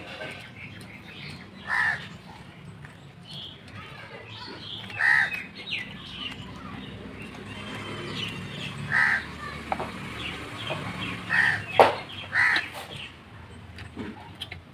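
A crow cawing: about five single caws a few seconds apart, with smaller birds chirping faintly. A sharp click about twelve seconds in is the loudest sound.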